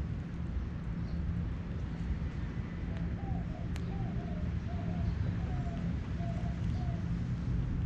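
A dove cooing: a series of about seven short, soft coos evenly spaced a little over half a second apart, starting about three seconds in, over a steady low rumble.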